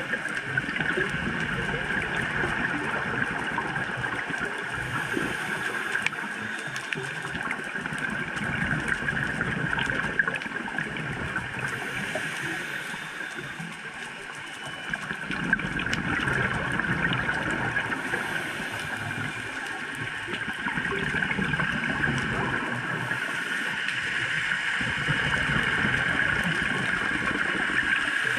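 Underwater ambience picked up by a diver's camera in its housing: a steady, muffled hiss and rumble, dotted with many fine crackling clicks.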